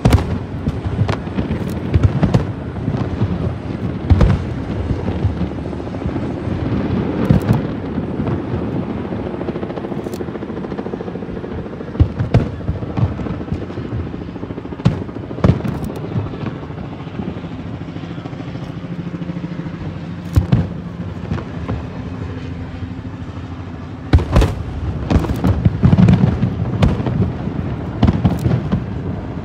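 Fireworks display: aerial shells bursting in a scattered series of sharp booms, with low rumble between them. The bursts come thick and fast in a quick run near the end.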